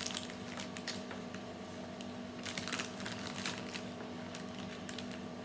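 A plastic lolly packet being opened and handled, crackling and clicking in irregular clusters, over a faint steady hum.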